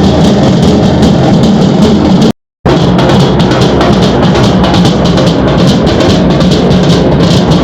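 Loud music with drums, running steadily and cutting out briefly about two and a half seconds in.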